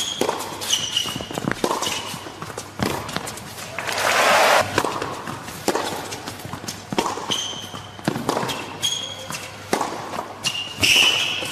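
Tennis rallies on an indoor hard court: rackets striking the ball in quick exchanges, sneakers squeaking sharply on the court surface and players' footsteps. A short burst of crowd noise comes about four seconds in.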